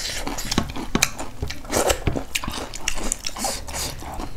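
A person chewing and biting food close to the microphone, with many short, irregular crunchy clicks.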